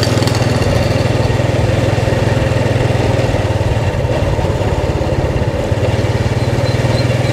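Motorbike engine running steadily while riding at an even speed, its firing pulses steady with little change in pitch.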